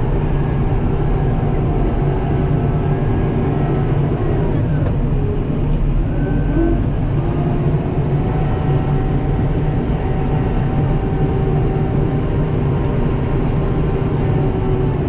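Kubota M7060 tractor's diesel engine running steadily under way, heard from inside the cab as a constant low hum with a few faint steady tones above it.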